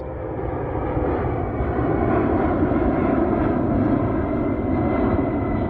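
C-17 Globemaster III in flight, its four Pratt & Whitney F117 turbofan engines making a steady jet roar as the aircraft flies past and climbs away.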